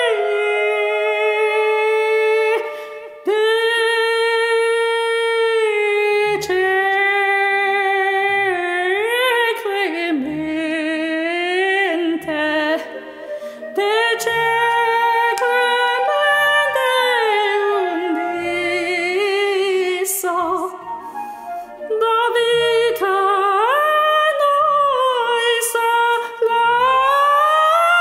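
Operatic soprano singing slow, sustained phrases with vibrato, with short breaks between phrases, climbing to higher notes near the end. Soft low accompaniment notes sound beneath the voice.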